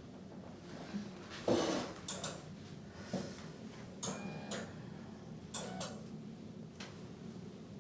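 Hands working on a body during a manual therapy massage: irregular soft rustles and clicks of skin, clothing and the treatment table, with a brief squeak about four seconds in.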